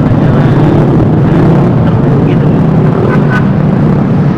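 Vespa S 125 scooter running on the move, its engine buried under a loud, steady rumble of wind on the helmet microphone.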